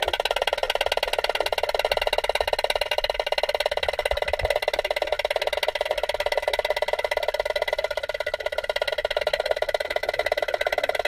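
Swimming pool equipment running, heard underwater: a steady buzz with very fast, fine clicking that does not change.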